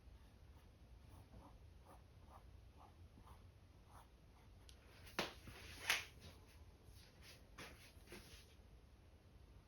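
Faint paintbrush strokes on a stretched canvas: a run of soft, short dabs, then two louder strokes about five and six seconds in and a few more after.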